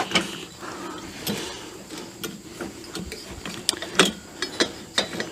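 Irregular metal clicks, clanks and rattles as a lawn tractor's mower pulley assembly and its spring are worked into place, with the sharpest knock about four seconds in.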